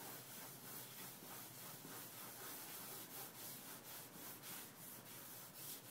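Drawing stick scrubbing over a large sheet of drawing paper on an easel in quick, repeated strokes: faint, dry rubbing as the head of a figure is sketched in.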